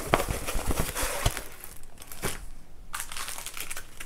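Clear plastic packaging crinkling and crackling as it is handled, with a few soft thumps early on and a brief lull about two and a half seconds in.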